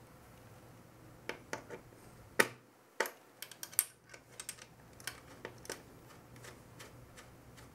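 Irregular light clicks and taps of small metal parts being handled: a CPU-cooler retention bar and its small screws being set onto the motherboard mounting bracket with a screwdriver. Two clicks, a couple of seconds in and around three seconds in, are louder than the rest, and the clicking dies away after about six seconds.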